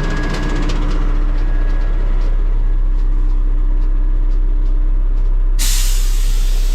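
Kenworth T880 dump truck's diesel engine running steadily, with a sudden loud burst of air hiss from the truck's air brakes about five and a half seconds in, lasting about a second.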